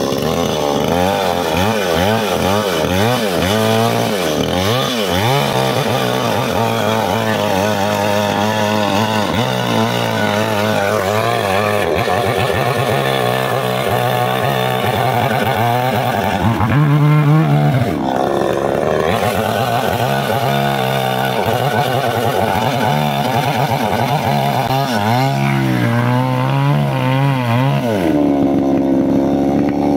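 Chainsaw cutting through a thick chestnut beam, the engine note wavering up and down as the chain bites and the saw labours under load. Near the end the pitch jumps higher and holds steady.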